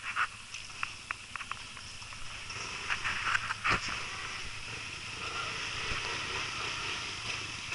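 Quad (ATV) engine running as the quad wades through a muddy water hole, with scattered splashes and sharp clicks in the first half. The engine sound grows a little stronger after about five seconds as the quad comes closer.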